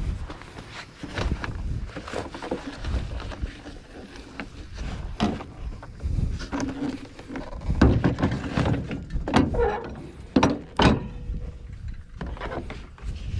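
Irregular knocks and clunks of lawn equipment and rack gear being handled on a pickup truck, with wind rumbling on the microphone. The loudest knocks come about eight and eleven seconds in.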